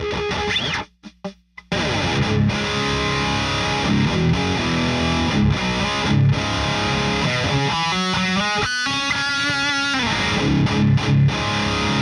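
Heavily distorted electric guitar, a Kramer Vanguard through a Victory Super Kraken amp pushed by a Fortin Hex Drive boost: a chord rung and cut off, a few short stabs, then a steady fast riff on the low strings with a brief run of single high notes in the middle.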